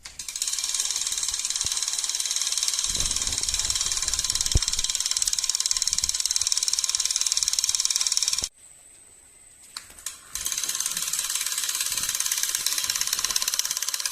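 Homemade door alarm's buzzer going off with a harsh, rapid, high-pitched buzz. It cuts out for about two seconds after about eight seconds, then starts again.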